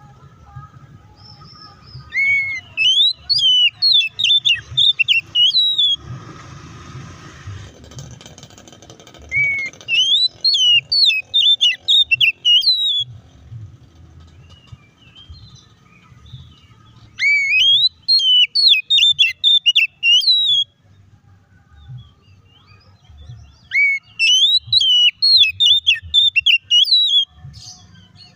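Oriental magpie-robin singing a loud fighting-mood song in four bouts of rapid, varied whistled phrases, each a few seconds long with short pauses between. A brief rushing noise comes between the first and second bouts.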